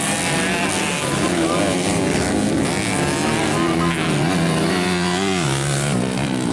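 Motocross dirt bike engines revving hard as riders race past, pitch rising and falling; one engine drops in pitch about five seconds in and then climbs again. A voice, likely a loudspeaker commentator, talks over the engines.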